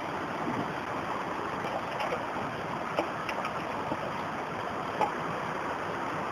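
Steady rush of a shallow stream flowing over rocks, with a few light clicks about two, three and five seconds in.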